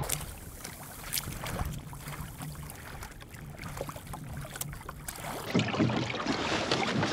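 Water lapping and splashing against the hull of a small wooden sailing dinghy under way in light wind, with scattered small knocks and creaks; the splashing grows louder near the end.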